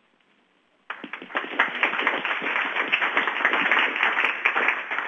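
Audience applauding. The applause starts suddenly about a second in and begins to die away near the end.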